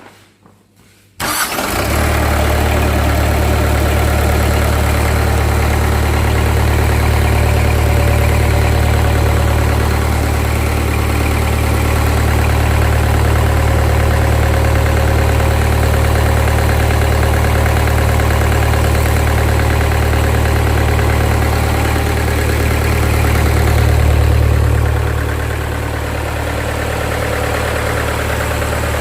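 Reconditioned Mitsubishi Fuso PS100 diesel engine starting about a second in, catching at once, then running steadily on test. Near the end it swells briefly, then settles to a slightly lower, steady run.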